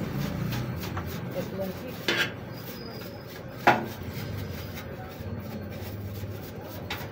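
A hand tool knocking against the open desktop computer case: two sharp clicks, one about two seconds in and a louder one a moment later, over a low steady hum.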